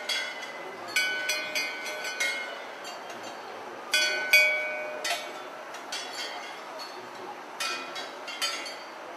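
Brass temple bells struck by hand again and again, in bursts of several clangs every couple of seconds. Each clang leaves a ringing tone that lingers.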